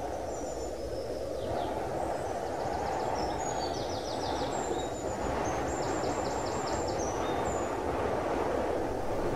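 A steady, low rushing ambience like filtered wind, with small birds chirping and trilling high above it from about a second and a half in until near the end.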